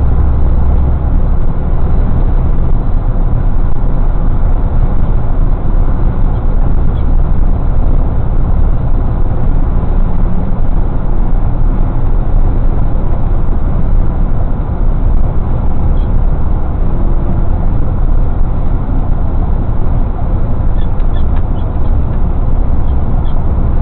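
Semi truck cruising at highway speed, heard from inside the cab: a loud, steady low rumble of engine and road noise that does not change.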